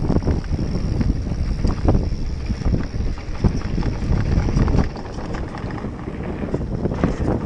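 Wind buffeting the microphone over the rumble of mountain-bike tyres rolling on a dirt and gravel track, with frequent knocks and rattles from the bike over bumps. It eases a little about five seconds in.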